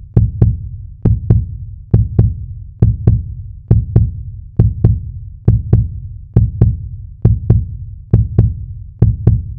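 Heartbeat sound effect: pairs of deep thumps in a steady lub-dub rhythm, a little more than one beat a second.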